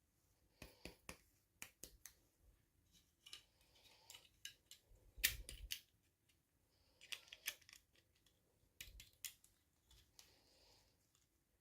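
Quiet handling sounds of unboxing small toys: scattered sharp clicks and taps with brief rustles of plastic packaging, loudest in a cluster about five seconds in.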